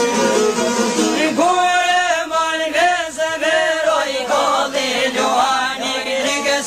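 Albanian folk song: instrumental accompaniment, then a male voice comes in singing about a second and a half in, in long, ornamented phrases.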